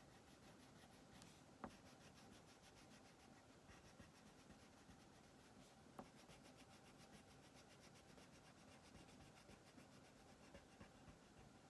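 Wax crayon scribbling on paper in quick back-and-forth shading strokes, faint and soft, with two small sharp ticks about a second and a half in and again around six seconds.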